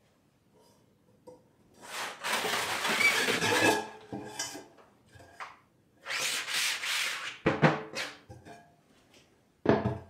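Screen-printing frames scraping as they are slid along a wooden shelf rack: two long rubs, then a few sharp knocks as frames bump against the shelf and each other.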